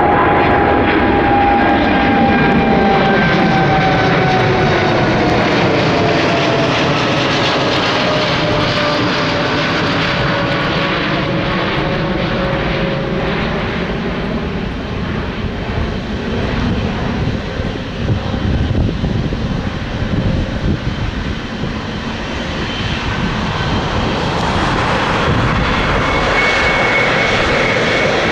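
Jet engines of a Boeing 777 freighter at departure power passing by, the engine tone gliding down in pitch as it goes past, under a steady loud rush.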